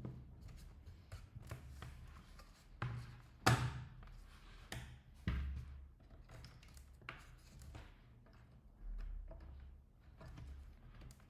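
Plastic clicks, taps and snaps from a plastic pry tool working a laptop's bottom panel loose from its clips, irregular throughout, with two louder snaps about three and a half and five seconds in.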